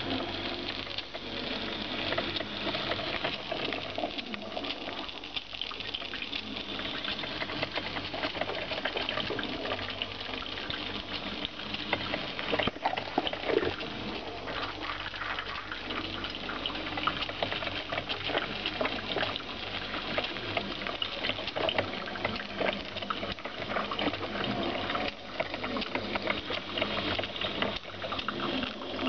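Electric drip coffee maker brewing: a continuous stream of watery gurgling and sputtering, full of small irregular crackles and pops.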